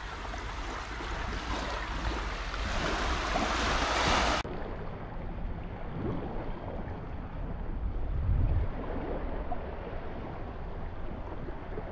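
Wind buffeting the microphone over small waves lapping at the water's edge: an even wash of noise with a low rumble. About four seconds in the hiss drops off suddenly and the sound turns duller.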